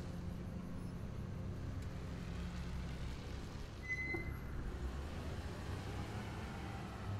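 Car engine running low and steady as the car moves off from a driveway, with a short high beep about four seconds in.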